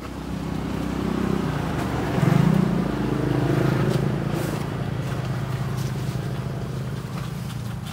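A motor vehicle's engine passing by. Its steady hum grows louder to a peak about two and a half seconds in, then slowly fades.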